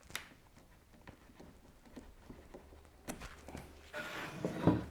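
A tight wooden tenon scraping against its blackwood mortise as it is worked in the joint: a light click near the start, then rubbing that grows louder over the last couple of seconds. The joint is too tight.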